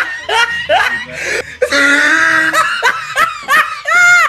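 A child giggling in quick, high-pitched bursts, ending in a short, high squeal near the end.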